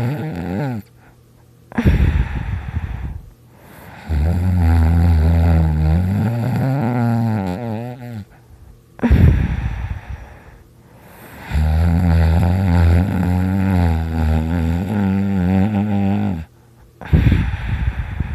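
A person snoring very loud in slow cycles: two long, low-pitched snores, each followed by a short breathy puff, with brief quiet gaps between breaths.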